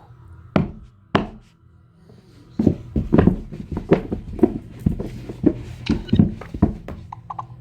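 A series of heavy knocks and thuds, two single ones at first and then a rapid run of about eight, like things slamming together and falling.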